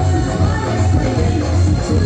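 Live band music played loud through a stage sound system, with a heavy bass line under keyboards and drums.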